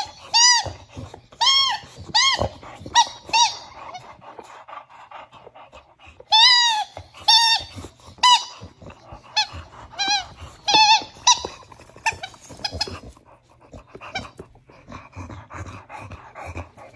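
Rubber squeaky toy squeezed in a bulldog's jaws, giving many short squeaks that each rise and fall in pitch, in quick runs of two or three. After about twelve seconds the squeaks come fewer and fainter.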